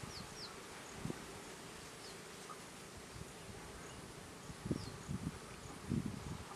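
Quiet outdoor ambience dominated by an insect buzzing steadily, with a few short, high, descending bird chirps. Soft low thuds, like rustling in the grass, come about a second in and again a few times near the end.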